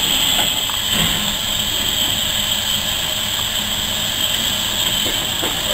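Steady, high hiss of steam from a standing GER Class Y14 (J15) steam locomotive.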